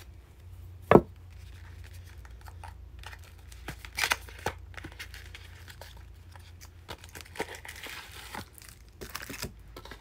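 Candle packaging being torn and crinkled open by hand, with scattered crackles and rustles and one sharp knock about a second in.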